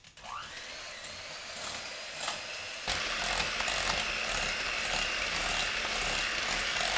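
Electric hand mixer switching on with a rising whine as its motor spins up, then running steadily with its beaters whisking a thin cream cheese and egg batter in a glass bowl; it gets louder about three seconds in.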